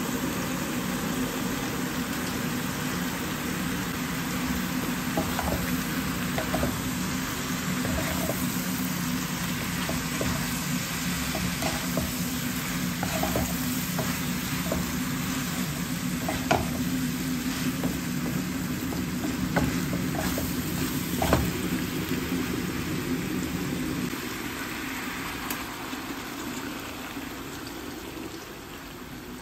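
Pork steak and sliced mushrooms sizzling in a wok, with a wooden spatula stirring them and knocking against the pan now and then through the middle of the stretch. A steady low hum runs underneath and drops away near the end, along with the overall level.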